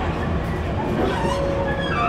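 Interior running sound of a JR 701 series electric train: a steady rumble of wheels on rail, with brief high tones at shifting pitches coming in about a second in.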